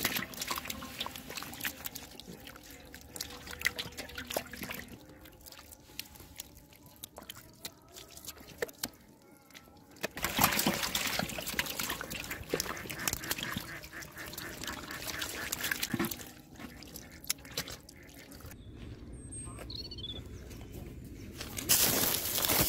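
Catfish wriggling and flopping through shallow muddy water: a run of wet slaps, squelches and splashes, heaviest at the start and again about ten seconds in. A brief louder burst of noise comes near the end.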